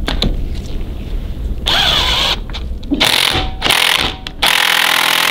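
Cordless impact wrench driving the bottom Allen bolt into a motorcycle fork leg, in three or four bursts, the last one the longest.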